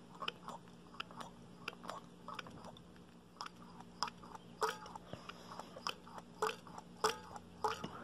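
LG washing machine pressure switch clicking faintly and irregularly as air is blown into its inlet, with a few short creaks: the diaphragm springing up and down, the sign that the switch is working and not stuck.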